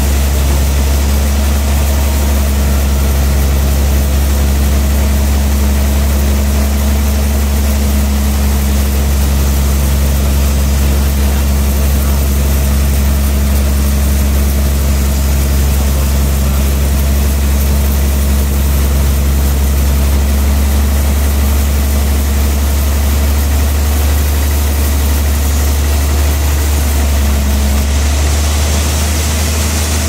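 Large band sawmill running with a loud, steady deep hum as a big trembesi (rain tree) slab is pushed through the blade. A couple of the higher tones in the hum drop out past the middle.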